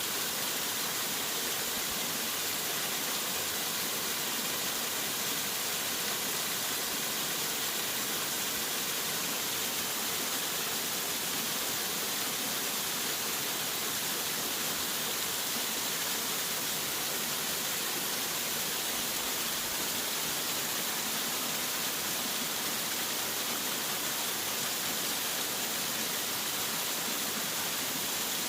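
Waterfall: water falling and splashing in a steady, unbroken rush, loudest in the high hiss.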